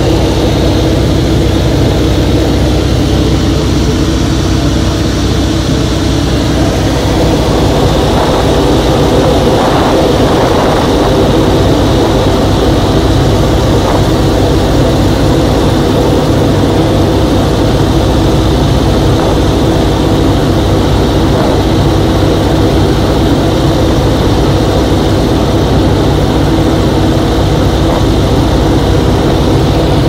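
Nanchang CJ-6 trainer's radial engine and propeller droning steadily in flight, heard from inside the cockpit.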